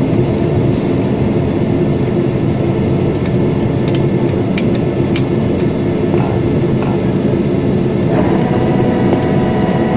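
Cabin noise of a Boeing 737-800 taxiing after landing: the jet engines running at idle over a steady rumble from the wheels rolling on the taxiway, with small rattling clicks. A higher engine whine joins about eight seconds in.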